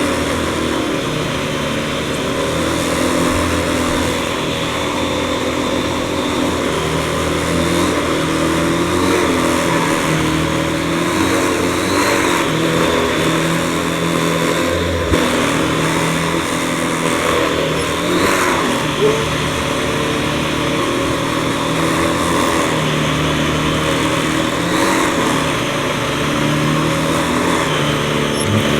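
Household vacuum cleaner running steadily, its motor hum wavering slightly in pitch a few times.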